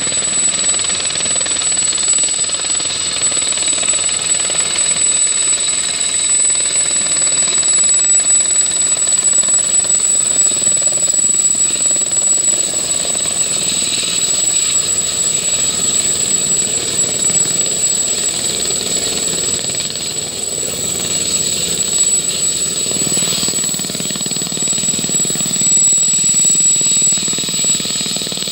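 Sud-Aviation SA 342J Gazelle helicopter hovering and setting down, its turbine and rotor running steadily, with a constant high whine over the rotor noise.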